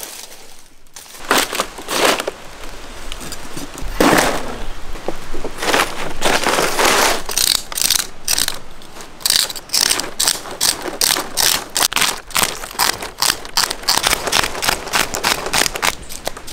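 Fish scales being scraped off with the serrated edge of a palmyra palm stem (karukku mattai), in repeated scraping strokes. The strokes are spaced out at first and come several a second from about seven seconds in.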